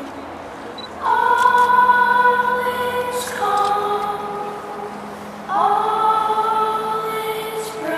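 Music of slow, held choir-like chords, several sustained notes at once, with a new chord swelling in about a second in, again halfway through, and again past five seconds.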